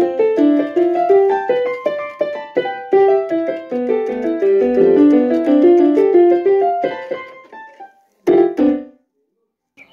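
Piano music: a steady run of notes that thins out and fades about seven seconds in, followed by one short chord a second later that cuts off.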